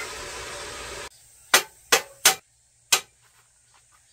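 Gasless flux-core MIG welding on the M100 Plus multi welder: a steady hiss that stops about a second in, then four sharp metallic knocks over about a second and a half.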